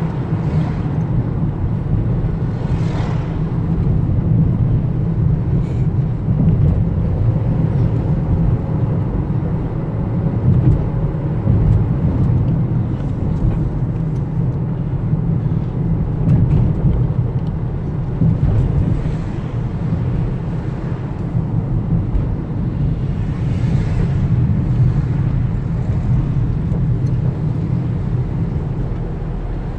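Steady low rumble of a road vehicle in motion, with faint brief hissing sounds now and then.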